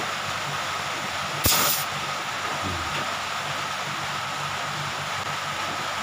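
Steady hiss of pressurized gas blowing out through a chest freezer's refrigerant line, a strong flow through the line being cleared of its blockage. A short, louder burst of hiss comes about a second and a half in.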